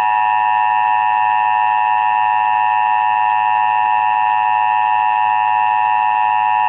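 Emergency Alert System attention signal: two steady tones sounded together (853 and 960 Hz), loud and unbroken, with no change in pitch.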